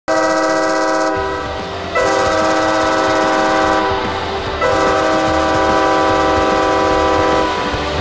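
San Diego Gulls arena goal horn sounding three long, steady blasts, the last the longest.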